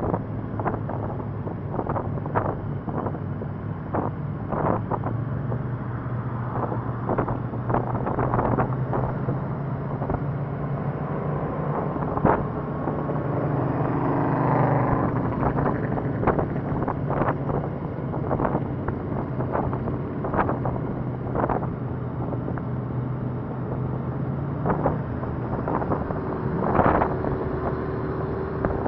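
Motorcycle engine running steadily at cruising speed, heard from the bike itself, with wind rushing over the microphone and frequent short, sharp taps. A swell of rushing noise comes about halfway through.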